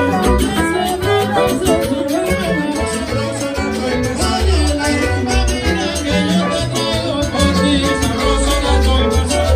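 Salsa band playing, with bass notes and percussion keeping a steady dance beat.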